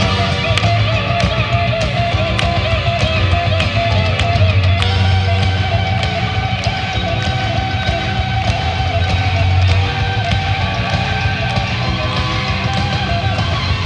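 Live jazz-rock fusion: an electric guitar plays a lead line with wide vibrato and then holds a long note, over electric bass, keyboards and drums with steady cymbal ticks. The bass shifts about ten seconds in.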